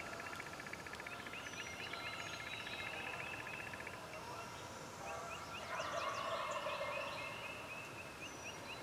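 Wild turkey gobbler gobbling once, a rattling call about six seconds in. Before it, a songbird trills rapidly for the first few seconds, and other small birds chirp.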